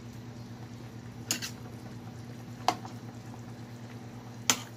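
A ladle and a fork clink sharply against a stainless steel pot three times while stirring through a simmering pork soup. Under the clinks there is a steady low hum.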